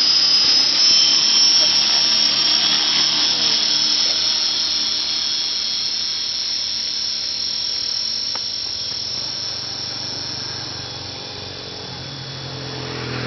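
Radio-controlled model helicopter flying: a steady high motor-and-rotor whine that rises slightly in pitch in the first second, then holds while growing gradually fainter as the helicopter climbs away.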